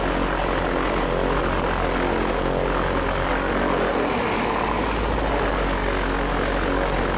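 Electric floor polisher running steadily, its motor giving a constant low hum under a broad whirring noise.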